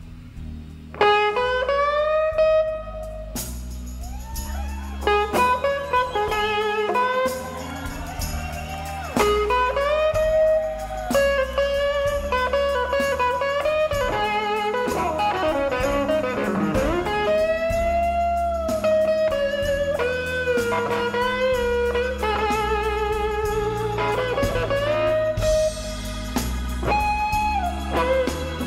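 Background music: blues-style guitar playing notes that bend and slide in pitch over a stepped bass line.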